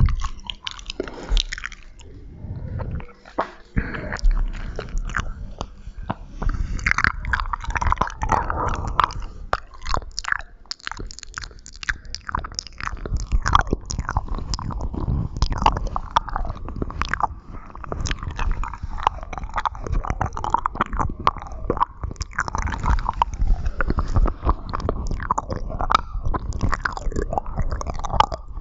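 ASMR mouth sounds close to the microphone: a continuous stream of quick mouth clicks and smacks.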